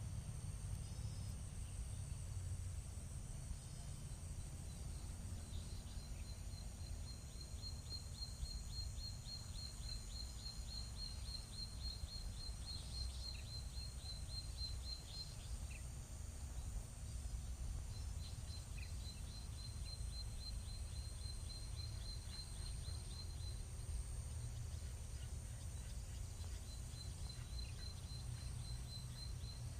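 Outdoor ambience of chirping wildlife: a steady high drone with a fast run of repeated chirps that starts and stops three times, over a constant low rumble.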